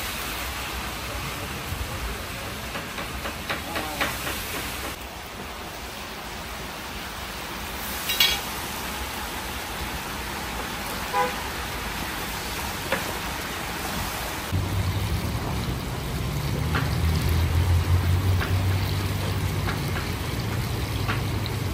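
Large chunks of beef frying in deep hot oil in a big plov kazan: a steady sizzling hiss, with a few sharp clicks. A low steady hum comes in about two-thirds of the way through.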